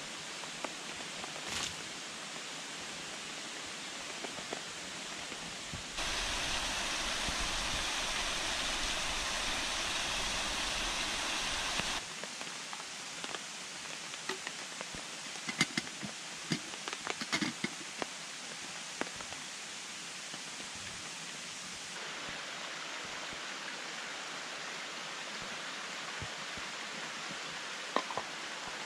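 Mountain stream rushing steadily, louder for a stretch from about six to twelve seconds in. In the middle comes a run of light clicks and knocks from a plastic water bottle being handled, with a few more knocks near the end.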